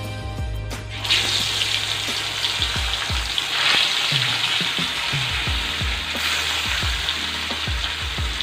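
Pieces of turmeric-and-salt-rubbed rohu fish going into hot mustard oil in a wok, bursting into a loud sizzle about a second in. The sizzle swells again as a further piece is added, over a few low knocks.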